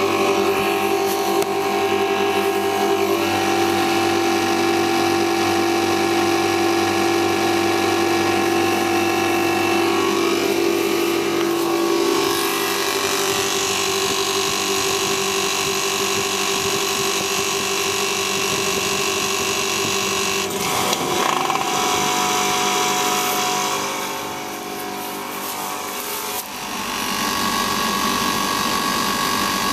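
Copeland condensing unit running: the compressor and the speed-controlled condenser fan hum steadily, with the coil blocked off by a sack so the head pressure rises and the fan is driven faster. The hum's pitch shifts about a third of the way in and again past the middle, and dips briefly in level near the end.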